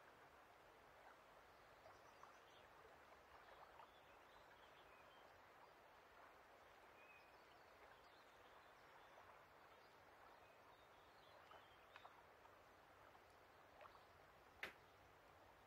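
Faint lake nature ambience: a soft steady outdoor haze with small scattered chirps and light ticks. One sharp click stands out near the end.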